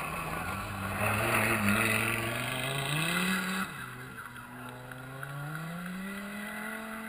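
Rally car passing at full throttle on a gravel stage, engine revs climbing, with gravel and dirt spraying as it goes by. The engine note drops suddenly about three and a half seconds in, then climbs again as the car accelerates away up the hill.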